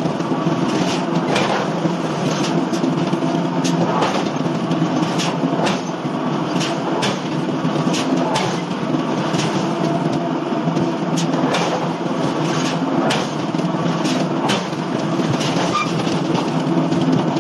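Heavy forging machinery running with a steady low mechanical hum, overlaid by irregular metallic clanks and knocks about once or twice a second.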